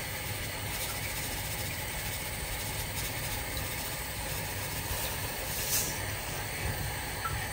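Steady hiss from a pot of rice and water heating on the stove, with a faint low rumble beneath it.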